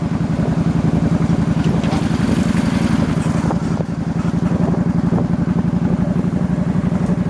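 Motorbike engine running steadily under way, its rapid firing pulses heavy in the low end, with wind rushing over the microphone.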